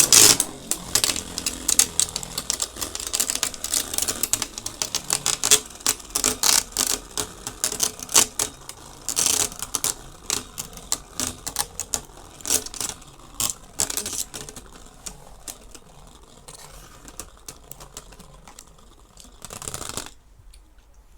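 Beyblade spinning tops clashing in a plastic battle stadium, with a rapid, irregular clatter of hits and scrapes. The hits thin out as the tops slow, and the battle ends suddenly about twenty seconds in.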